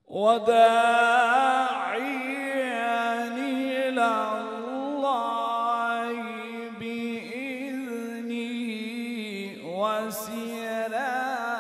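A man reciting the Quran in the melodic, drawn-out mujawwad style into a microphone: long held, ornamented notes that start abruptly, with a brief breath about nine and a half seconds in before the line resumes.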